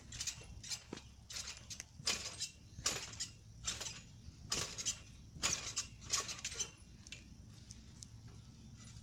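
Loose gravel crunching in a run of short, irregular scrunches, stopping about two-thirds of the way through.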